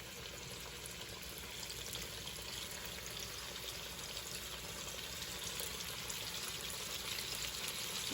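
Flour-coated buttermilk chicken pieces frying in a pan of hot oil: a steady sizzling hiss with fine crackles, slowly growing louder.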